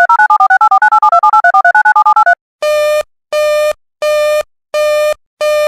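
Synthesized emergency-alert tones. First comes a fast two-note beeping run that steps up and down in pitch for about two seconds. After a short pause a single buzzy tone beeps on and off at an even pace, about three beeps every two seconds.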